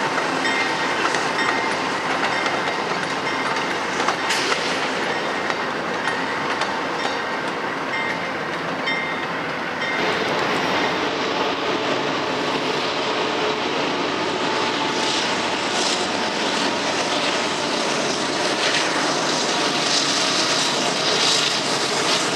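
Amtrak passenger coaches rolling past on the rails, wheels clicking over the track, with faint steady high whines. After a cut about ten seconds in, a freight train with a locomotive and loaded coal hoppers approaches, its rail noise growing louder near the end.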